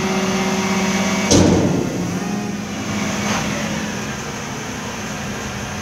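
Dennis Eagle refuse truck's engine and hydraulics running with a steady hum, and a single loud metallic clunk about a second and a half in, after which it runs a little more quietly.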